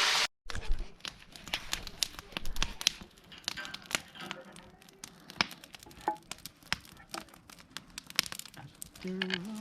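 Irregular sharp crackling and crinkling clicks, with a voice briefly near the end.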